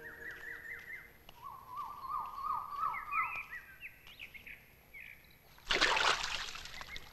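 A bird sings a series of quick down-slurred notes, then a loud splash of pond water comes about two-thirds of the way through.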